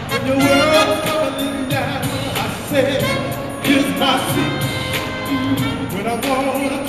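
Live gospel vocal ensemble singing with band accompaniment, the voices sliding through sustained melodic runs over a steady beat.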